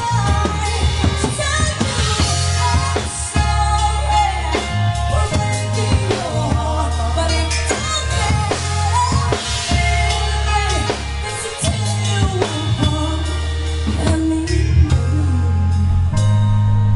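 Live band playing a slow pop ballad: electric keyboard, drum kit and bass under a woman singing, heard in the room rather than from a mixing desk.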